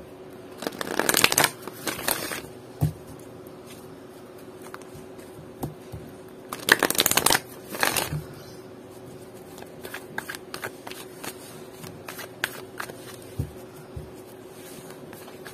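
Oracle card deck shuffled by hand: bursts of card rustling, loudest about a second in and again around seven seconds, with scattered light card taps between. A faint steady hum sits underneath.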